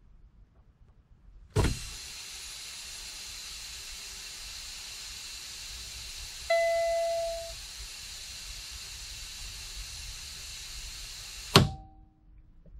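Truck air brake system hissing steadily as compressed air escapes through the disconnected red trailer supply line, starting with a click about a second and a half in. A dash warning tone beeps for about a second midway as the air pressure drops. Near the end a sharp pop and the hiss cuts off: the trailer air supply knob popping out as the tractor protection valve closes.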